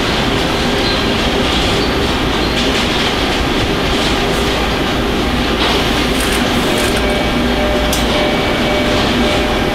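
Steady machinery din of a car assembly line, with a few short high clicks in the second half.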